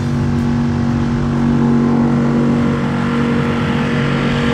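Mercury 5 hp outboard motor running at a steady speed, pushing a small skiff along.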